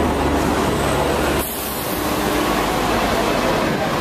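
Hong Kong double-decker electric tram running along its street track, heard from on board: a steady rumble of wheels and running gear, with a low hum that drops away about a second and a half in.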